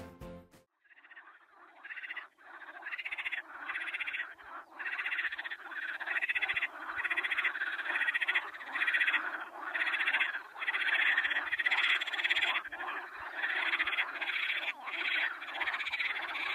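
A dense chorus of calling water frogs at night, many frogs croaking over one another. The chorus comes in about a second in and then goes on continuously, with a rapid pulsing rattle and brief dips.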